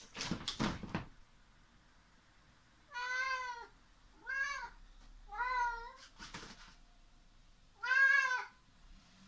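Domestic cat meowing four times, short calls that rise and fall in pitch, the last the loudest. Rustling from the cat's fabric play tunnel comes at the start as the cat dives in, and again midway.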